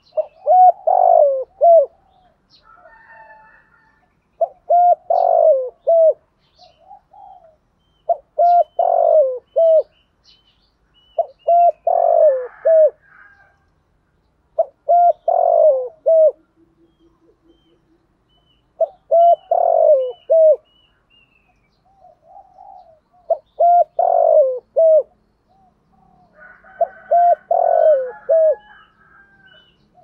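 Spotted dove cooing: eight phrases, one about every three to four seconds, each a short run of notes.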